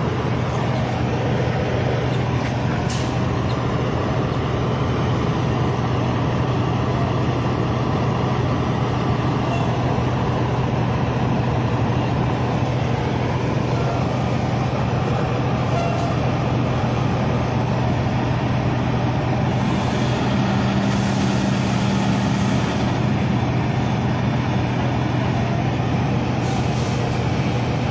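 Steady rumble of idling diesel semi-trucks, with a constant low hum, and a higher steady tone added for a couple of seconds about twenty seconds in.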